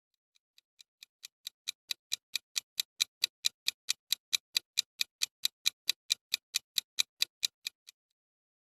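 Countdown timer sound effect: a clock ticking evenly, about four to five ticks a second, fading in over the first couple of seconds and stopping shortly before the end.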